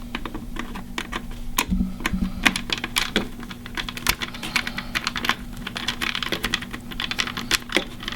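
Irregular small clicks and taps of hands working stripped power-supply wire into the plastic terminal block of a home security control panel, over a steady low hum.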